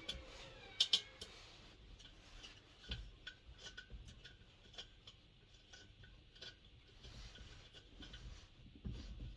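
Spanner and small metal parts clicking and clinking while a diesel heater is unbolted and taken apart, with two sharp clicks about a second in and a few dull knocks.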